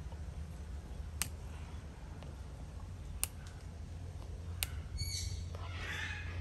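A cracked tempered-glass phone screen protector clicking under a thumb pressed on its edge: three sharp clicks about one and a half to two seconds apart. A short chirping sound follows near the end.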